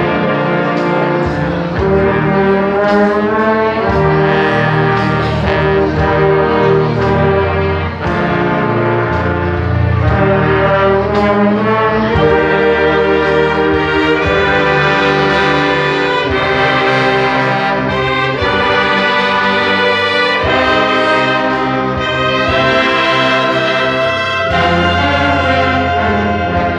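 Orchestra led by its brass section, trombones and trumpets, playing a piece in held chords that change every second or two.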